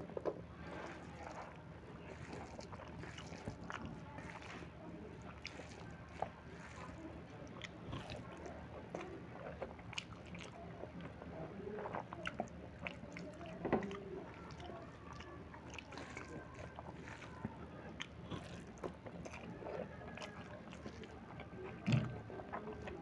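Close-up mouth sounds of a person eating soft rice and cooked greens by hand: chewing and lip smacks, with many small irregular clicks and a few sharper ones. A steady low hum runs underneath.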